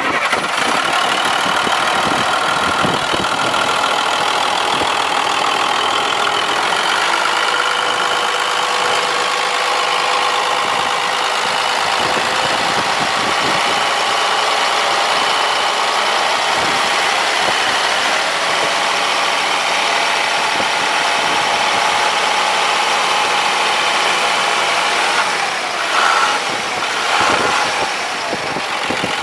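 International DT466 inline-six diesel engine idling steadily, heard up close at the open engine bay, with steady high whining tones over the engine note.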